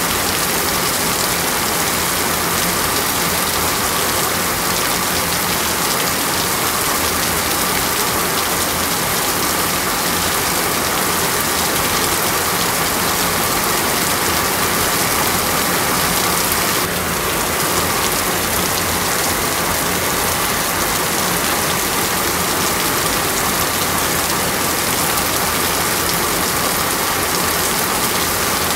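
Heavy rain falling in a steady, dense hiss, with a faint steady tone underneath; the sound shifts slightly about 17 seconds in.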